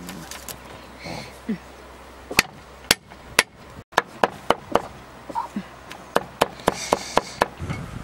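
Steel cleaver chopping garlic cloves on a wooden chopping block: a series of sharp knocks, a few at first, then coming quicker, about three a second, from about four seconds in.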